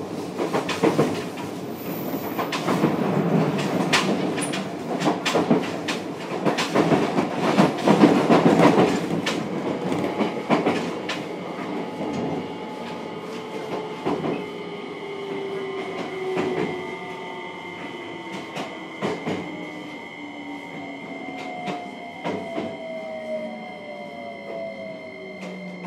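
Running sound of a JR Kyushu 303 series electric train heard inside its motor car, with wheels clicking over rail joints. From about halfway, the running noise drops and the Hitachi VVVF inverter's steady high tones and traction motor whine take over, the whine falling in pitch as the train slows.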